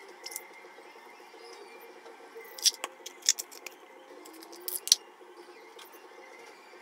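Plastic marker caps being pulled off and pressed back on: a handful of sharp little clicks in two clusters, the loudest near the end.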